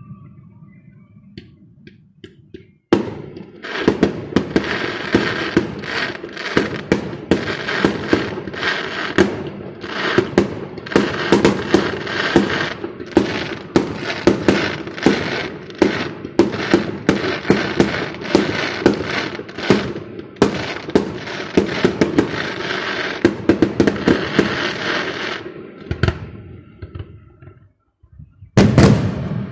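Fireworks display: a rapid barrage of bangs and crackles starts about three seconds in and goes on almost without pause for over twenty seconds, then stops. One more loud burst comes near the end.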